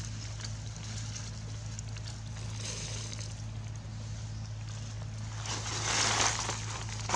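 Dry leaf litter rustling and crackling under a baby macaque's feet, loudest about six seconds in as it scrambles up, over a steady low hum.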